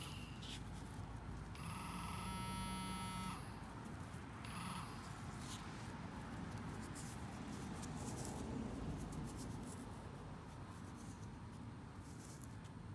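Handheld metal-detecting pinpointer giving its buzzing alert tone on metal in the hole, for about a second and a half starting about two seconds in and again briefly near five seconds. Fingers and the probe scrape and rustle in loose soil.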